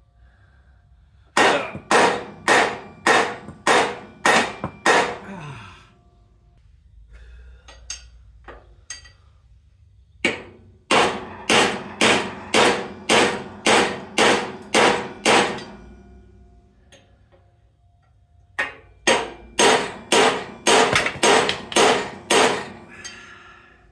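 Hammer blows on a stuck steel part of a 1960 GMC truck's rear suspension, about two a second, each ringing briefly. Three runs of strikes come with short pauses between them, and the part is not coming loose.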